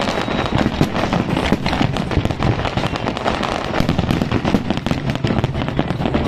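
A large fireworks display: aerial shells bursting in a dense, continuous barrage, the bangs coming rapidly and overlapping with no pause.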